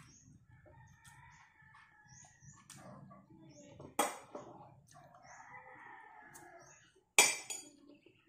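Rooster crowing in the background, two long drawn-out crows about a second in and about five seconds in. Two sharp clicks close by, at about four and seven seconds, are the loudest sounds.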